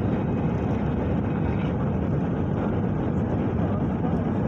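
Steady roar of an airliner's engines heard inside the passenger cabin, a constant low rumble with no change in level.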